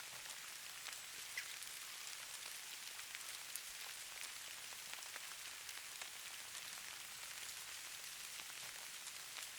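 Steady patter of light precipitation falling on a surface: a soft, high hiss full of tiny ticks, with a couple of sharper drops about one and a half and three and a half seconds in.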